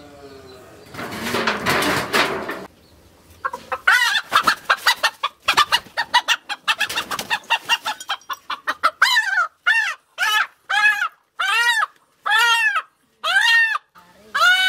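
A country chicken clucking and then squawking in alarm as it is caught and held by hand. There is a short noisy rush about a second in, then a flurry of quick clucks, and from about nine seconds a string of loud drawn-out squawks about one a second.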